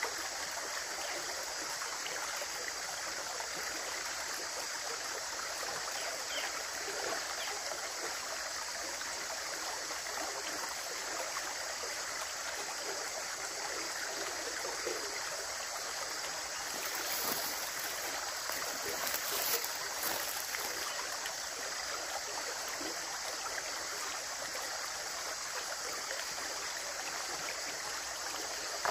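Running water flowing in a steady rush, briefly a little louder and brighter past the middle.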